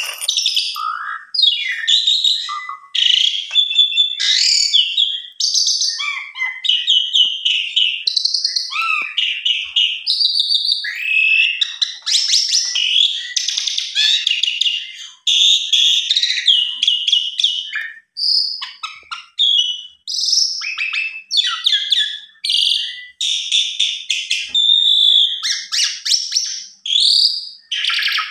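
Pied starling (jalak suren) in long, agitated full song: a rapid, varied run of chirps, whistles and harsh buzzy notes with only brief pauses.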